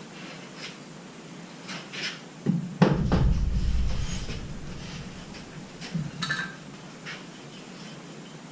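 Scattered knocks and clicks of wood and tools being handled, with one heavy thud about three seconds in that trails off in a low rumble for about a second, and a couple more knocks near six seconds.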